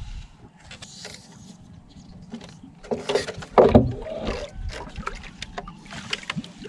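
Water splashing and sloshing with irregular knocks around a small fishing boat, louder for a moment about three to four seconds in.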